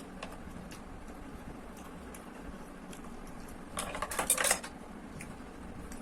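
Cutlery clinking and scraping against a dish while eating noodles: a quick flurry of clinks a little after halfway, with a few faint clicks elsewhere.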